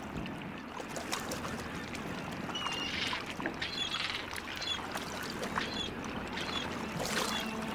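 Sea water lapping and sloshing against melting ice floes, with short high bird calls repeating faintly over it from about a third of the way in.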